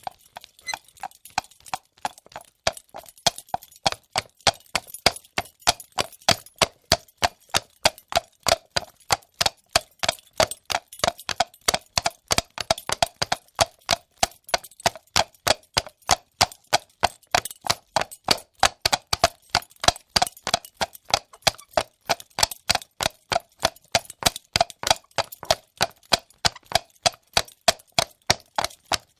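Horse hooves clip-clopping on a hard surface: a steady, quick run of sharp hoof strikes, a few to the second.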